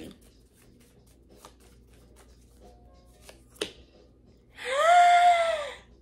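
Soft ticking and snapping of tarot cards being shuffled, with one sharper snap, then a woman's drawn-out vocal exclamation near the end that rises and then falls in pitch.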